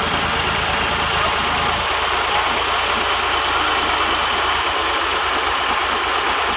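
Farm tractor's diesel engine running steadily under load as it pulls a trolley loaded with sand, with a low, even throb.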